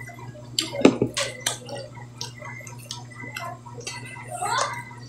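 Eating sounds at a meal of shrimp and fish: a scatter of short wet clicks and smacks, bunched in the first few seconds.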